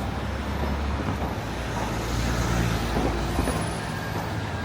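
Road vehicle noise: a steady low rumble of engines and traffic, swelling a little about two seconds in.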